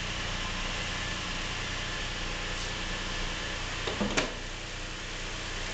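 Lincoln MKX's Ford 3.7-litre V6 idling steadily, with one sharp clack about four seconds in. The owner reports a knocking noise from the back of this engine that has been there since new and seems to be getting worse.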